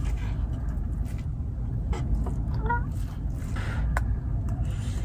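Wind buffeting the microphone as a steady low rumble, with scattered light clicks and taps and a brief squeak near the middle.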